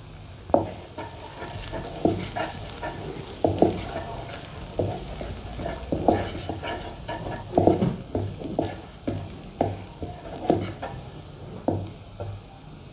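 Chopped garlic sizzling in hot ghee in a nonstick wok, stirred with a wooden spatula that knocks and scrapes against the pan about once a second.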